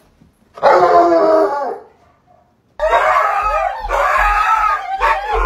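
Dog howling: one wavering howl about a second long starting just after half a second in, then from about three seconds in a longer run of wavering howls, with a low rumble underneath.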